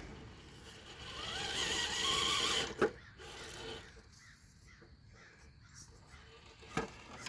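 GMADE RC crawler's electric motor and drivetrain whining as the truck drives, the pitch rising as it speeds up, with two sharp clicks a few seconds apart.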